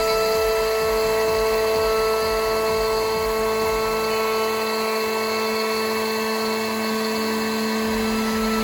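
CNC router spindle running with a steady whine made of several held tones, over a noisy hiss.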